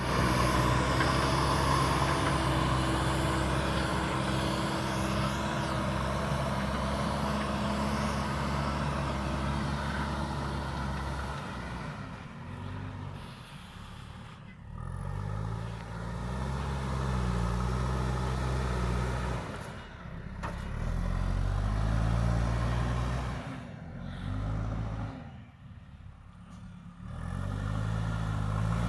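JCB backhoe loader's diesel engine running under load. Steady for the first part, then its speed rises and falls again and again in the second half, with short dips.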